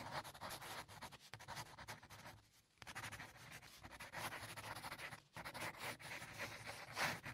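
Marker pen scratching across a board in quick writing strokes, faint, pausing briefly about two and a half seconds in and again just after five seconds.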